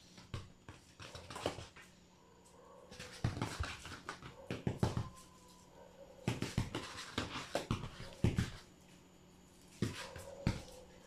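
Kittens' paws and claws scrabbling and tapping on a wooden floor as they pounce at a feather wand toy, in four bursts of rapid clicks and scuffs.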